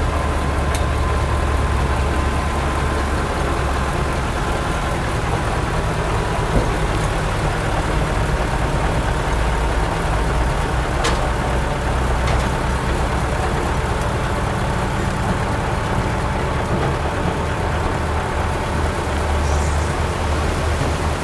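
Heavy diesel engine of earthmoving machinery running steadily with a deep rumble, a faint high whine above it and a couple of light clicks midway.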